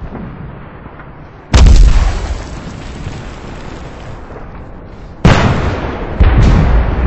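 Explosions, like artillery fire: a heavy boom about a second and a half in, then two more near the end less than a second apart, each dying away in a long low rumble.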